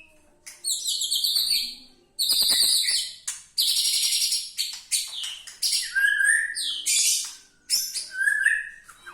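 White-rumped shama (murai batu) singing a loud, varied song of rapid high-pitched trills and phrases in quick succession, with lower whistled notes near the end. The song is packed with 'isian', phrases mimicked from other birds.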